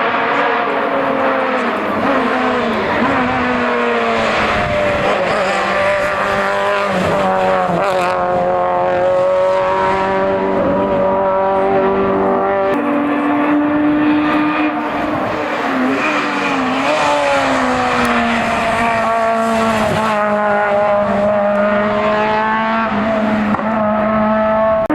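Hillclimb race car engine running hard, its pitch climbing and dropping as it changes gear and lifts off for corners.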